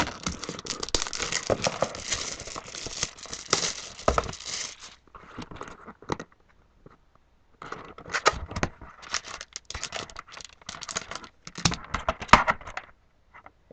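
Plastic wrapping on a hockey card box being torn open and crinkled, with dense crackling. It stops for about two seconds midway, then the crinkling and handling start again.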